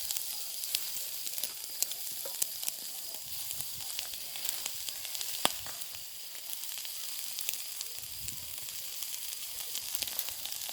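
Kebabs sizzling over a fire: a steady hiss with frequent sharp crackles and pops, one loud pop about five and a half seconds in.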